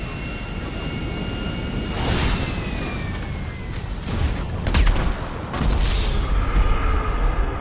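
A steady high whine like an aircraft engine, dropping in pitch about two to three seconds in, then several heavy booms with a deep rumble after them.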